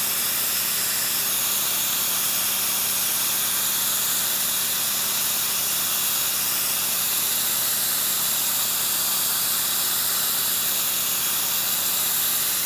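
Harbor Freight portable abrasive blaster sandblasting a fiberglass wing skin: a steady, unbroken hiss of compressed air and abrasive leaving the nozzle.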